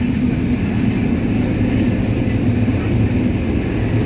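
A train running: a steady low rumble that holds even throughout.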